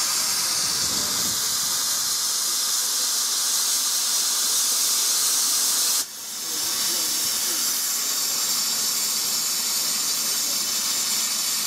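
Steam escaping with a loud, steady hiss from LMS Stanier Class 5 4-6-0 'Black Five' steam locomotive 45231 while it stands. The hiss drops away suddenly about six seconds in and then builds back up.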